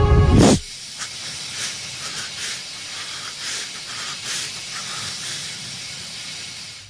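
Tense music cuts off abruptly about half a second in, leaving a steady hiss with a few faint, soft swells.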